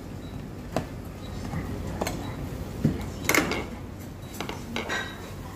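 Tableware clinking and knocking: about half a dozen sharp clinks, the loudest about three and a half seconds in, over a steady low hum.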